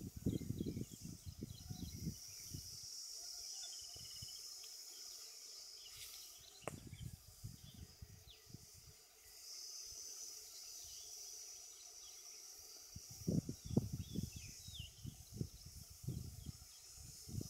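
Outdoor field ambience: a steady high-pitched insect hum in the background, with a few faint short bird chirps, and low rumbles on the microphone at the start and again near the end.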